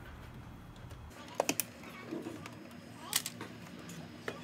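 Sharp plastic clicks and taps as Hyundai Santa Fe dashboard trim is worked with a plastic pry tool: a quick run of three clicks about a second and a half in, then single clicks around three seconds in and near the end.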